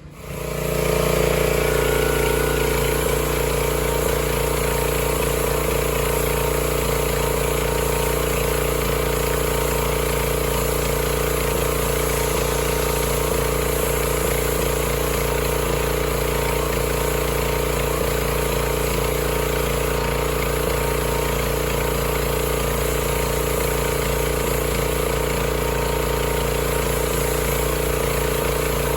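Small gasoline engine, most likely the pressure washer's, coming up to speed right at the start and then running steadily at constant speed.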